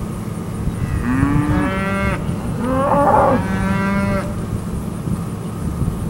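Angus-sired steer calves bawling: two long calls, one about a second in and another in the middle, over a steady low rumble.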